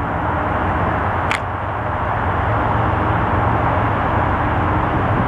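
Approaching diesel locomotive running steadily, its low engine hum and rumble slowly growing louder as it nears, with a single sharp click about a second in.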